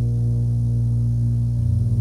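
Steady low drone of a Dash 8 twin-turboprop's propellers on final approach. A pulsing beat sets in near the end.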